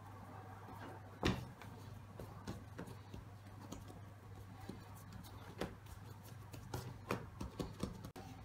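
Hands rolling and pressing baguette dough on baking paper: soft pats and paper rustling, with one sharp knock about a second in and a few lighter taps later. A steady low hum runs underneath.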